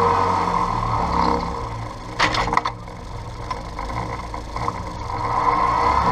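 Massey Ferguson 1523 compact tractor's diesel engine running while it works a rear-mounted slurry scraper. About two seconds in the engine eases off and there is a brief clatter and scrape, then the engine picks up again near the end.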